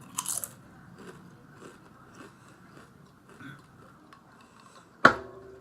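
Crunching bites and chewing of kettle-cooked potato chips, with a crisp crunch near the start and small crackles after it. A single sharp knock about five seconds in is the loudest sound.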